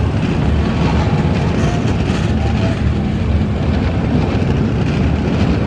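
Diesel locomotive and train running loud and steady at close range, a dense, unbroken, low-pitched rumble.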